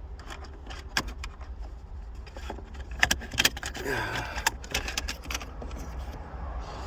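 Sharp clicks and small rattles of plastic trim clips and metal pick tools being handled while the gear shifter surround of a 2006 Volvo S40 is pried apart, with the loudest clicks about a second in and around three seconds in.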